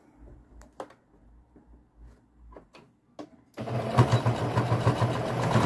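A few faint clicks, then about three and a half seconds in a sewing machine starts stitching, running steadily with a fast even rhythm as it sews a lace strip onto a dish towel.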